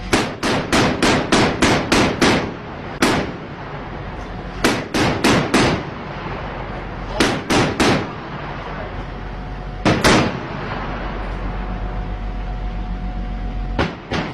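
Gunfire in short bursts of rapid shots, about four to five a second, with pauses between bursts and a few single shots.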